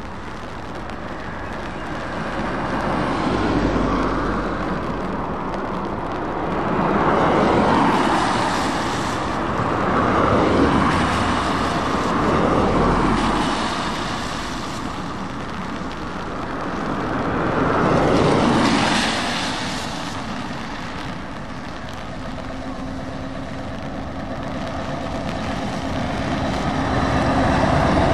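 Road traffic passing one vehicle after another on a wet road, each swelling and fading as it goes by, with the hiss of tyres on wet tarmac. A Scania truck tractor unit passes close near the end.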